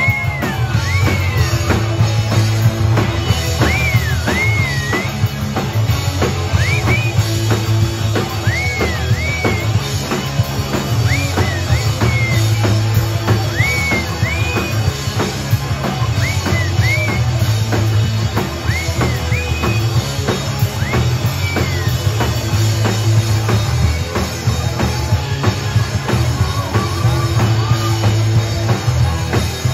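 Live rock band playing loud: drum kit with bass drum, bass guitar and electric guitar. A high line of bending, sliding notes repeats every second or so over the band, then drops out about two-thirds of the way through.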